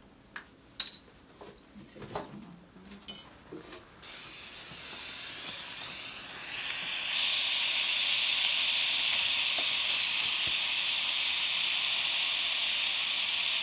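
A few scattered clicks and knocks, then about four seconds in a steady high hiss of rushing air starts, grows louder around seven seconds and holds: air and gas flowing through dental equipment at the patient's mouth during ozone treatment of a tooth.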